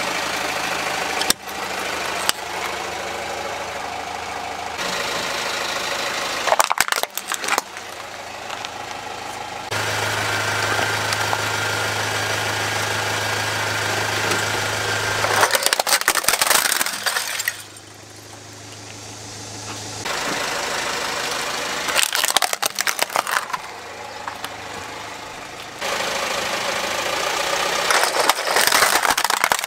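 A car idling while its tyre rolls slowly onto plastic toy vehicles, which crack and crunch under the weight in several separate bursts of snapping plastic. The engine hum changes abruptly between the bursts where one crushing clip cuts to the next.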